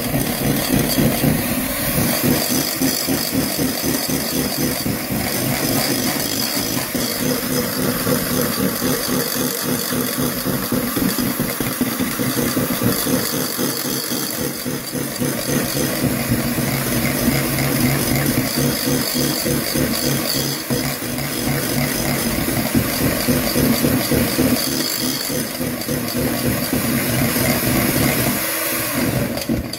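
Electric hand whisk running steadily, its beaters rattling against the mixing bowl as sugar is whisked into egg whites to make stiff, glossy meringue.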